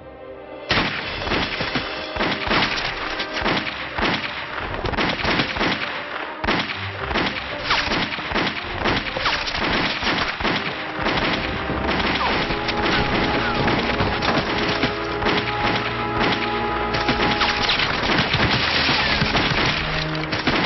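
Dramatic film score with a dense, rapid run of gunshots and bullet impacts that starts suddenly about a second in and goes on without a break.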